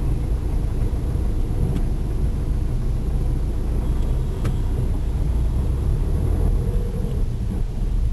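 A car driving along, heard from the car itself: a steady low rumble of engine and road noise, with a couple of faint ticks.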